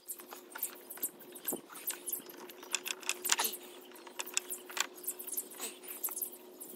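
Irregular small clicks and rattles of tail-light bulb holders and their wiring being handled and twisted in the light housing.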